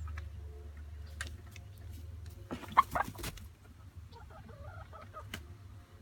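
Hens clucking in a nest box as one lays an egg, with a short loud burst about halfway through and soft wavering clucks after it.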